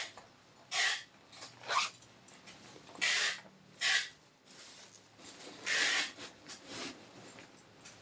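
Rustling and rubbing as handbags are pulled out and handled, in about eight short, irregular bursts.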